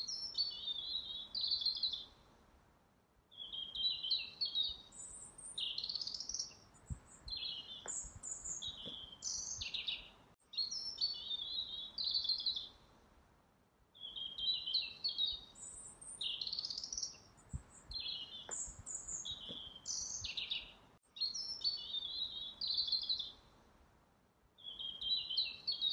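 A songbird singing varied phrases of chirps, whistles and trills, with short pauses between them. The same roughly ten-second stretch of song repeats, like a looped recording.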